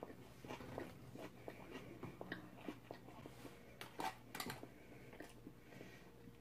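Faint close-up chewing with small clicks. About four seconds in, a metal fork scraping food out of an aluminium foil pie tin gives a few sharper scrapes and crinkles.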